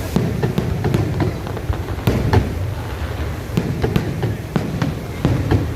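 Fireworks going off: an irregular run of sharp bangs and crackles, several a second, over a steady low rumble.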